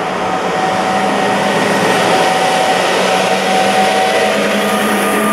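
PKP Intercity EU160 (Newag Griffin) electric locomotive running past close by at the head of a passenger train. A steady electric whine of several held tones sits over the rumble of wheels on rail, growing slightly louder as the locomotive comes alongside.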